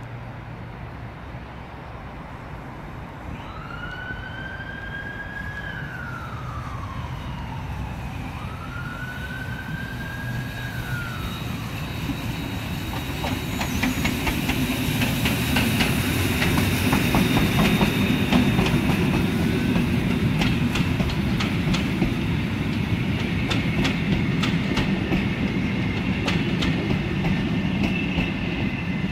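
A siren wails twice, rising and falling, in the first third. Then, from about 12 s, a ČSD class 555.0 steam locomotive and its train of coaches pass close: a swelling rumble with many rapid clicks of wheels over the rail joints.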